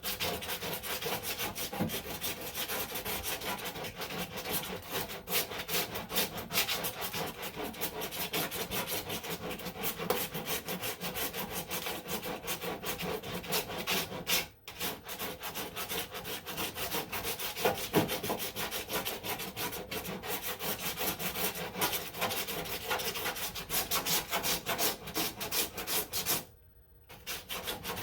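Sandpaper on a hand sanding block being stroked back and forth over body filler on a car panel, a steady rasping that knocks down the high spots of the filler. It stops briefly about halfway and again near the end.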